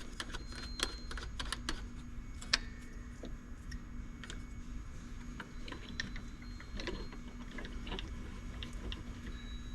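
Scattered light clicks and taps of hands adjusting the cutting-bit arms on a Pro-Cut on-the-car brake lathe, one sharper click about two and a half seconds in, over a faint steady hum.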